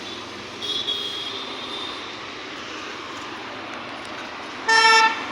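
Steady road traffic noise with engines running, ending in a short, loud vehicle horn toot near the end.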